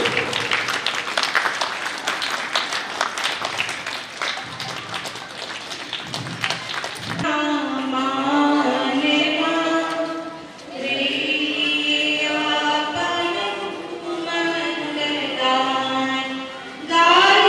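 A crowd clapping and applauding. About seven seconds in it cuts abruptly to a sung song with music.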